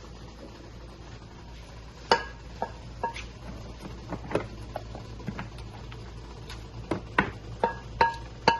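Pieces of king crab shell clinking and knocking against a pan as they are set in it: scattered taps starting about two seconds in, coming more often near the end, over a low steady hum.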